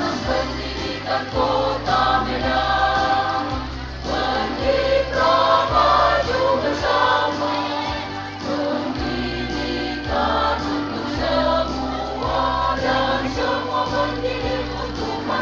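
School choir singing a march with instrumental accompaniment, its bass notes changing about once a second.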